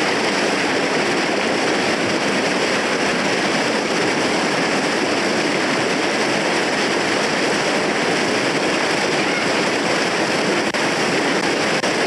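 Water rushing over a low granite waterfall cascade, a steady, even rushing noise.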